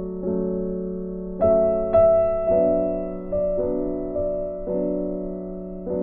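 Background music: a piano-like keyboard playing slow sustained chords, a new chord struck about every second, each fading before the next.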